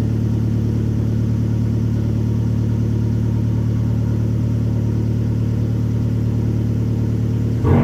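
Abarth's engine idling steadily, heard from inside the cabin, then breaking suddenly into a louder rev right at the end.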